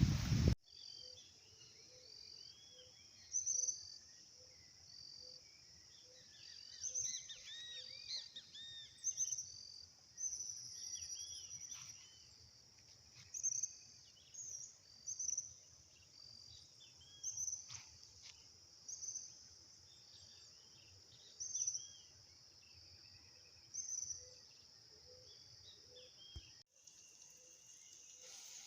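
Countryside ambience: a steady high-pitched insect buzz with birds chirping and calling over it, a brighter call every second or two.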